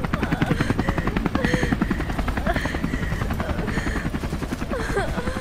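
Helicopter rotor chopping rapidly and steadily, with a woman crying and wailing over it.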